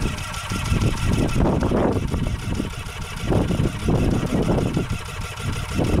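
Rotax 582 two-stroke engine of a microlight trike running rough on the ground, its level surging up and down unevenly every second or two; the crew put the rough running down to one carburettor not working.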